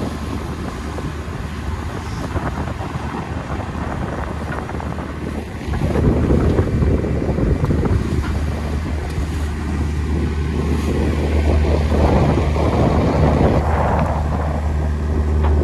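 A boat's engine running steadily underway, with wind buffeting the microphone and water rushing past; the wind and water noise grows much louder about six seconds in.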